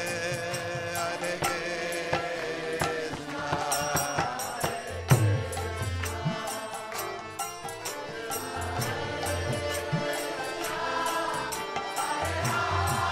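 Kirtan music: voices chanting a mantra over a steady percussion rhythm, with deep drum strokes coming in about five seconds in.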